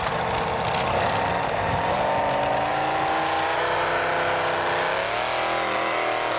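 Modified pulling tractor's engine running hard at high revs while dragging a weight-transfer sled down the track, its pitch climbing gradually and then wavering near the end.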